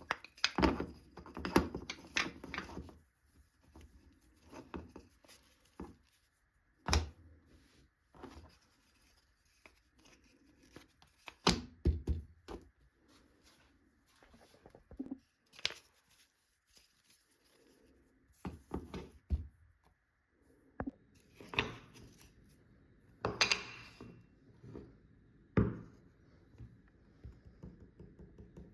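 Irregular knocks, taps and short scrapes of wooden pieces being handled and set down, with a faint steady high tone behind from a few seconds in.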